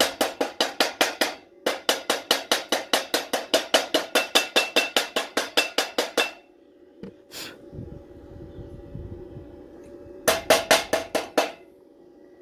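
Rapid metal taps, about six a second, in three runs with a pause between the second and third: a chipping hammer knocking the slag off a fresh weld on rebar.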